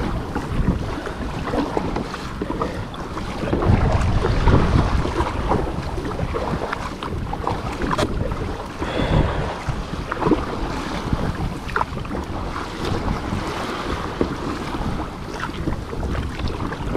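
Wind buffeting the microphone over open-sea water splashing around a kayak: a rumbling, irregular wash that swells and falls, with occasional sharp splashes.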